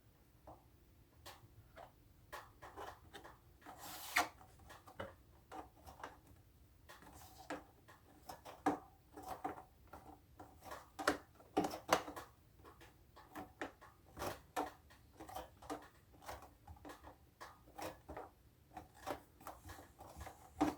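Irregular clicks, taps and light knocks of an adhesive cable organizer being handled and pressed into place, a few of them sharper.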